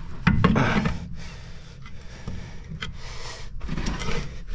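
Hand work on metal brake parts under a truck: scraping with short knocks and clicks as a part is fitted into place.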